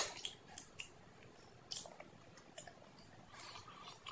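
Soft close-miked eating sounds: chewing with scattered small clicks and crackles, then a soft tearing rustle near the end as a puffy fried bhatura is pulled apart by hand.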